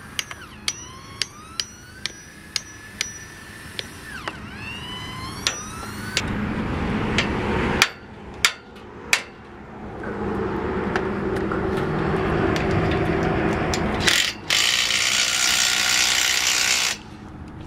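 Hammer striking a carriage bolt home through a wooden post and steel truss, about two ringing metallic blows a second for the first four seconds and a few more later. Then a power drill runs for several seconds, loudest and highest-pitched near the end.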